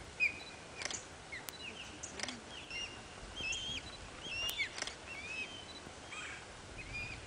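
Ospreys calling: a string of short, high whistled chirps, many hooked or rising in pitch, with a few sharp clicks among them.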